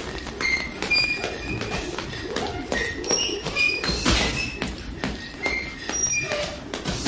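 Jump rope slapping the gym floor and the skipper's light footfalls, a quick run of taps and soft thuds, with short high squeaks scattered among them.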